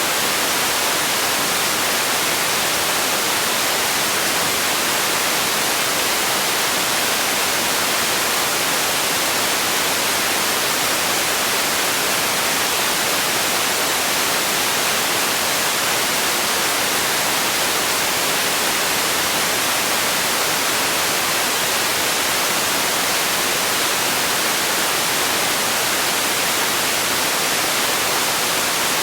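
Steady, unbroken synthetic noise: an even hiss, strongest in the treble and thin in the bass, played as a sleep and relaxation sound.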